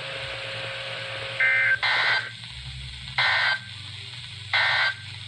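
NOAA Weather Radio SAME digital data bursts: short warbling two-tone blasts about 1.3 s apart, the first broken by a brief gap. Coming straight after the warning text, they are the end-of-message code that closes the broadcast. Radio hiss and a steady low hum run underneath.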